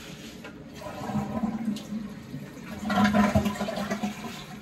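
Toilet flushed by its tank lever: water rushes into the bowl and down the drain, building about a second in, loudest around three seconds in, then easing off near the end.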